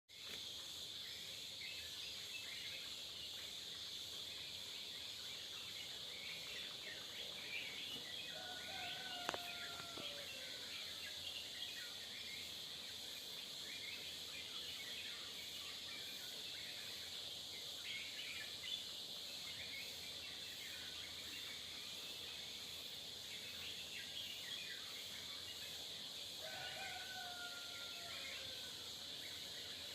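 Many small birds chirping, with short calls scattered throughout, over a steady high insect drone. Twice, about nine seconds in and again near the end, a longer whistled call slurs down at its end. A single sharp click comes around nine seconds.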